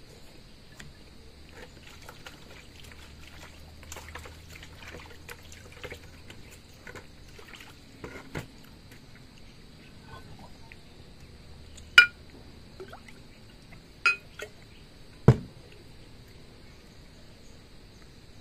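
Eating with the hands: small scattered clicks and soft mouth sounds, then water poured from a glass pitcher, with two sharp glass clinks about two seconds apart and a knock on the wooden table. A steady faint high insect drone underneath.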